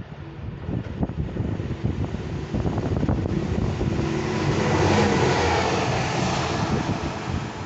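Railway track machine passing through a station at speed: its engine and wheel noise build as it approaches, are loudest as it goes past close by about five seconds in, then begin to fade.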